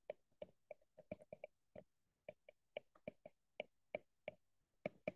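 Faint, irregular clicks of a stylus tip tapping and sliding on a tablet's glass screen during handwriting, about four a second.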